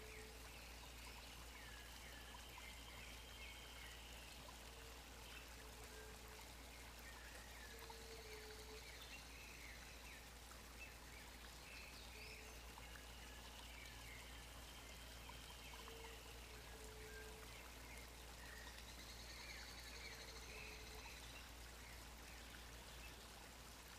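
Faint woodland birdsong. Several birds repeat high, arching trilled phrases every few seconds, and a short low note, often given twice, calls now and then, over a steady background hiss.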